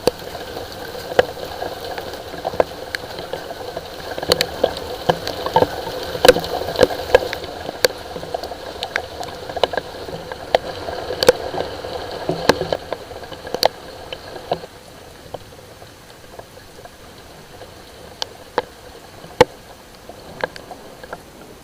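Rain falling, with many separate drops splashing close by on a hard surface as sharp clicks over a steady patter. The rain is heavier through the first part and eases about fifteen seconds in.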